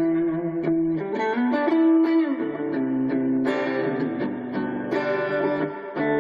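Hadean EG-462 Strat-style electric guitar on its bridge pickup, played through a small Roland Micro-Cube amplifier: a run of picked single notes and chords with sharp pick attacks.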